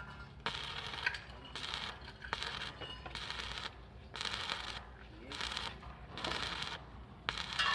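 Electric arc welding on steel, the arc crackling and sputtering in short bursts that start and stop about every second.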